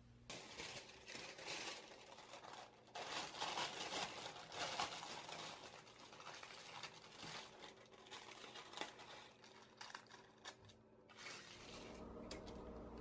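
Baking paper crinkling and rustling in quick irregular crackles as hands press it into a round cake tin. The crinkling stops near the end, leaving a faint steady hum.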